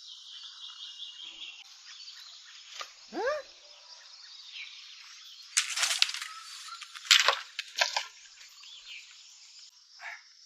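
Steady high-pitched chorus of frogs and insects, with a falling call about three seconds in and two loud, short rushing bursts about six and seven seconds in.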